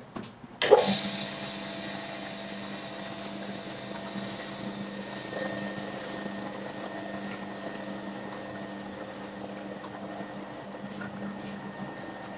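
A sharp knock just under a second in, then the steady hum of bakery machinery running, with a few fixed whining tones over it.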